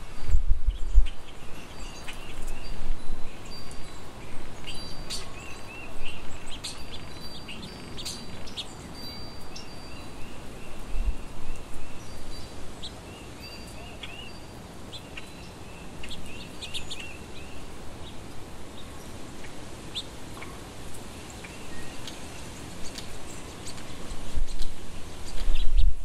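Small songbirds calling: runs of quick repeated chirping notes and sharper single chirps, busiest in the first half and thinning out later, over a low rumble that swells near the end.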